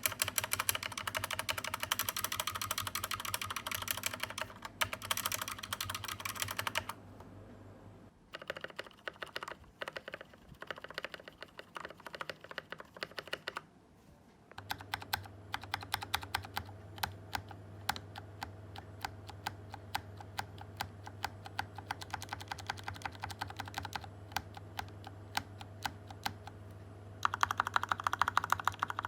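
Fast typing on a Tecware Phantom Elite TKL mechanical keyboard with Kailh Speed Silver switches: dense runs of key clicks, broken by two short pauses, with a louder, faster run near the end. A low steady hum lies under much of it.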